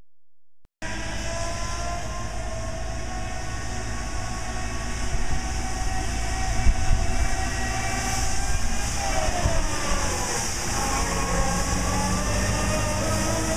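Elgin Pelican three-wheel street sweeper running as it approaches: a steady engine drone with a whine and the hiss of its brooms on the pavement, starting abruptly about a second in. About two-thirds of the way through, the whine dips in pitch and climbs back.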